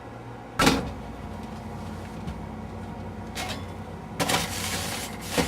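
Refrigerator sounds: a sharp knock about half a second in, then a steady low hum. Two rustling, scraping noises follow later, one short and one longer, as of items being moved about inside the fridge.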